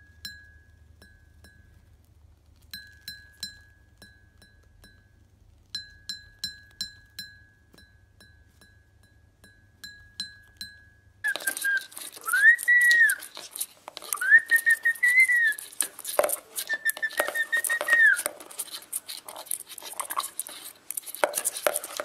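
A cockatiel tapping its beak against a porcelain bowl: sharp ringing clinks in small clusters over a faint low hum. About eleven seconds in, a green parrot whistles three rising-and-falling notes amid clattering and scrabbling in a plastic bucket.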